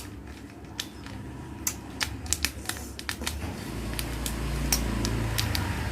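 Scattered sharp clicks and light taps, irregular and a few per second, over a low rumble that grows louder a little past halfway.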